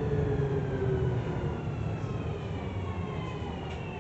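Tokyu 3000 series train's Hitachi IGBT VVVF inverter and traction motors whining in several falling tones over the rumble of the wheels, heard from inside the car. The pitch drops as the train slows under braking.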